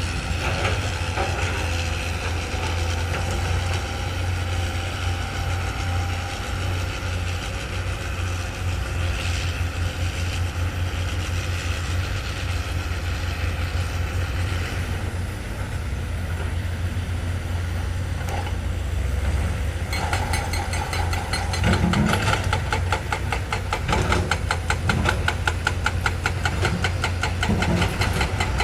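Heavy diesel earthmoving machinery running steadily with a deep engine drone. About two-thirds of the way through, a rapid, regular metallic clatter joins in and keeps going.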